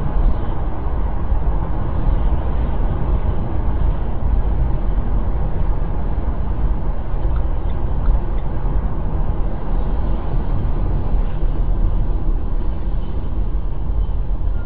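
Steady engine and tyre noise of a car driving at road speed, heard from inside the cabin through a dashcam's microphone.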